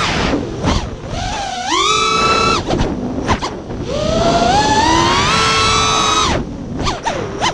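Whine of a racing quadcopter's Xnova 2206 2500kv brushless motors driving HQ 5x4x3 three-blade props. The pitch rises as the throttle is punched, holds, then drops sharply when the throttle is cut, several times over, ending in short choppy blips.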